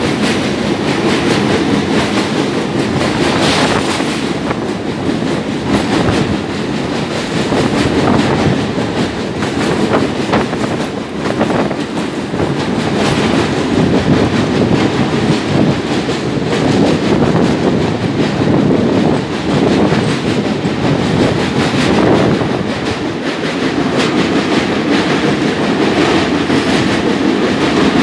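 Passenger train running at speed across a steel truss railway bridge, heard from an open coach door: a loud, steady rumble with continuous clatter of the wheels on the rails.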